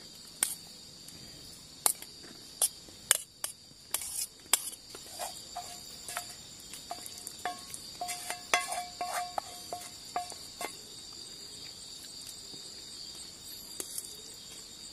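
Cookware clinking and scraping against a stainless steel plate and pot as rice and curry are served, with scattered knocks and, in the middle, short metallic rings. These stop at about two-thirds of the way. A steady high chirping of insects runs throughout.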